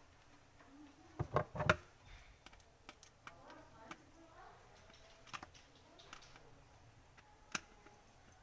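Scattered small clicks and taps of plastic parts being handled and worked loose on a mop handle, with a quick cluster of louder clicks about a second in.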